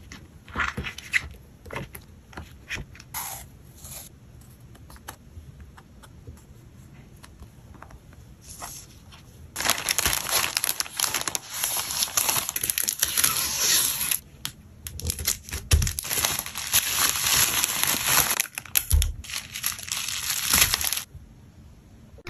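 Plastic packaging handled by hand: a few short crinkles and taps in the first half, then about eleven seconds of dense, loud crinkling of bubble wrap being wrapped around an album, with a few soft thumps, stopping shortly before the end.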